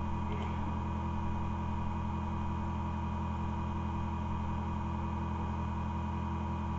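Steady low electrical hum with faint hiss, unchanging throughout: the background noise of the recording with no other sound.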